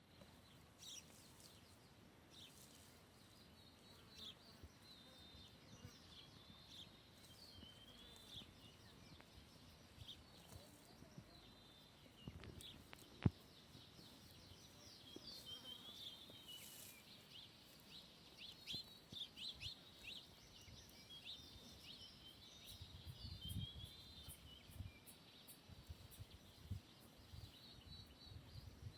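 Faint outdoor birdsong: many small birds chirping and trilling in short phrases, with one sharp click about halfway through.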